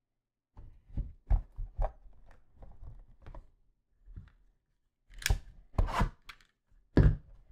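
Trading cards and their pack wrappers being handled on a table: a run of light taps and clicks, then sharp tearing and crinkling sounds about five seconds in, again at six, and once more near the end.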